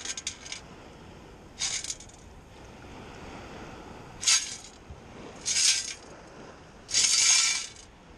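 Long-handled sand scoop being shaken in shallow water to sift a dug hole: five short bursts of rattling and splashing, the longest near the end.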